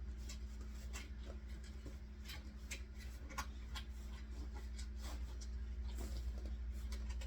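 Irregular light clicks and ticks from hands handling small objects, a few a second, over a steady low hum.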